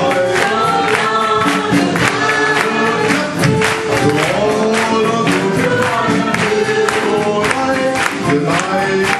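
A musical's cast singing together in chorus over band accompaniment with a steady beat.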